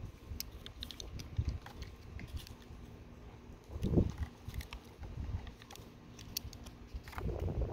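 Small plastic Kinder Surprise toy pieces being handled and fitted together: scattered light clicks and rubbing, with a dull bump about halfway through.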